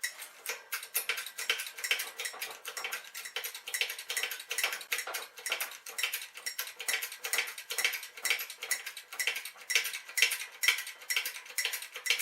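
Rapid, steady metallic clicking, about five clicks a second, while a new wheel bearing is pressed into its housing.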